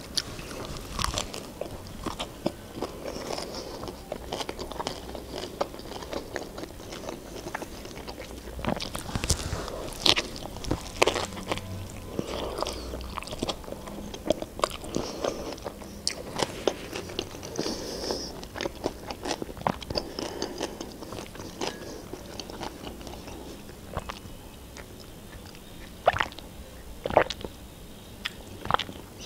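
Close-mic biting and chewing of a chicken shawarma wrapped in lavash, with irregular crisp crunches and a louder cluster of them about ten seconds in.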